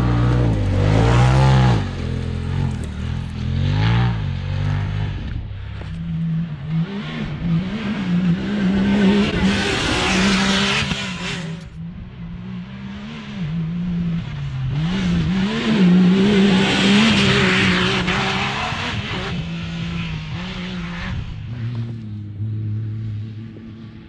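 Side-by-side UTV engines running hard over loose dirt and gravel, revving up and down so the pitch rises and falls. Two louder, hissier stretches come about ten and seventeen seconds in, and the engine settles lower and steadier near the end.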